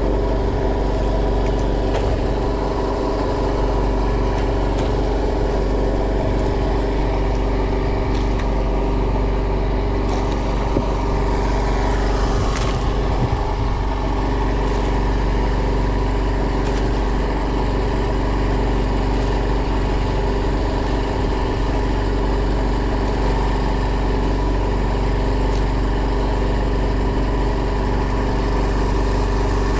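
A fishing boat's engine running steadily at an even speed.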